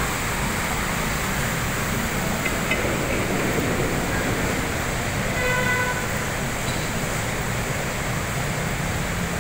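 Steady road traffic noise, with one short horn toot about five and a half seconds in.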